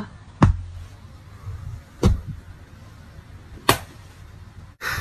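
Hands slapping down onto hands on a padded couch cushion, three sharp slaps with a dull thud about a second and a half apart.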